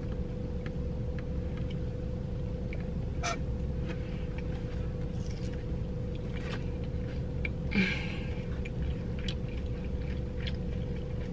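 A person eating quietly: a few faint clicks and a soft rustle, about eight seconds in, over a steady low rumble with a constant hum.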